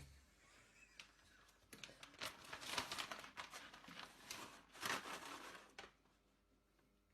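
Crinkling and rustling for a few seconds, dense with small crackles, with a louder flurry about five seconds in.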